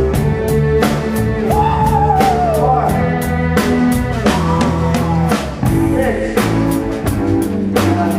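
Rock band playing a song: drum kit beating steadily under bass and guitars, with a lead line that bends up and down in pitch.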